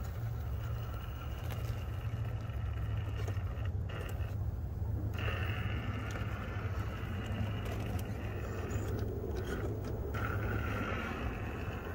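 RC rock crawler's electric motor and geared transmission whining as it crawls up a rock, the whine dropping out briefly a few times, with tyres scraping on rock and gravel and a steady low rumble underneath.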